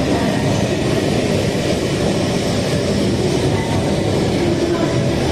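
E5 series Shinkansen train pulling into the platform, a steady low running noise from the passing cars echoing in the concrete underground station.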